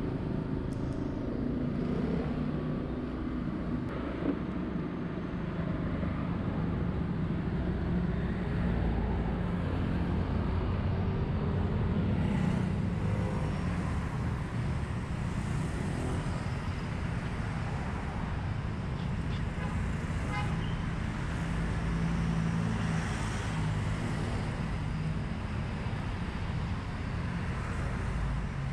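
Steady city traffic and road noise heard from a moving scooter, with a small engine running underneath and other vehicles passing.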